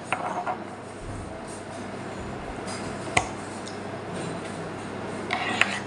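Metal fork and spoon clinking against a plate while eating: one sharp clink about halfway through and a few more near the end, over a steady room hum.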